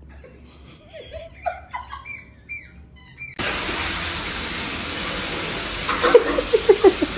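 Kitten mewing: a string of short, high calls that rise and fall. After a sudden change to a steady hiss, a quick run of short squeaky calls comes near the end.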